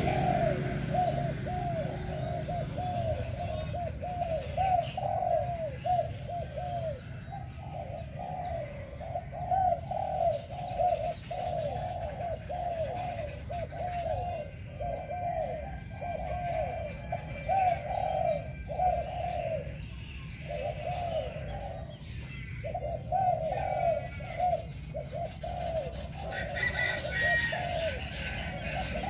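Caged decoy spotted dove cooing in a long, fast series of soft, short coos, about four a second, with a few brief pauses.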